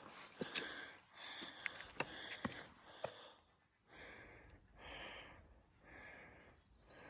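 Footsteps scuffing and clicking for about three seconds, then a person breathing hard after an uphill climb, about one loud breath a second.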